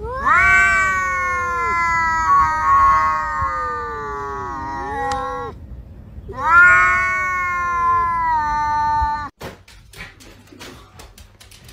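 Two cats facing off yowling at each other, an aggressive warning yowl between rivals. Two long drawn-out wavering yowls, the first about five seconds and the second about three. The second cuts off abruptly about nine seconds in, followed by a few faint clicks.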